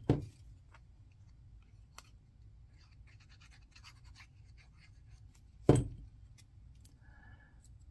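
Small cardstock pieces being handled and pressed into place on a cutting mat, with faint scratchy rustles and ticks. Two sharp knocks stand out, one right at the start and one about five and a half seconds later.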